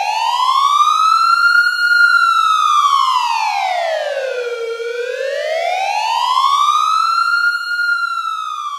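Siren wailing: a smooth tone that slowly rises and falls in pitch, twice over.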